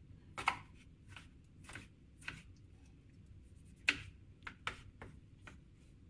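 Kitchen knife cutting a tomato on a plastic cutting board: about ten irregular knocks of the blade hitting the board, the loudest a little before four seconds in.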